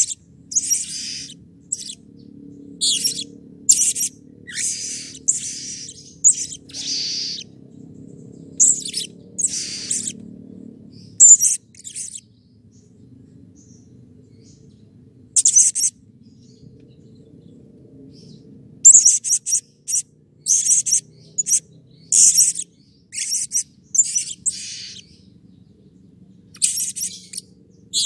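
Male blue-crowned hanging parrot (serindit) calling: quick runs of short, sharp, high-pitched chirps. The calls stop for a few seconds in the middle, and a dense run of chirps follows near the end.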